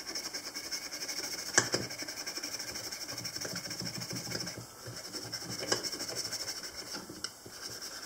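Fine steel wool scrubbed rapidly back and forth along the spine of an old Ka-Bar pocket knife's blade, scouring off rust and grime, with a few sharper clicks as the knife knocks on the block.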